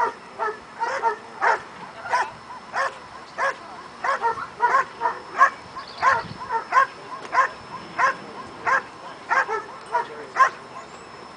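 Protection-trained dog barking steadily at a decoy, about two sharp barks a second, holding him in a guard-and-bark. The barking stops shortly before the end.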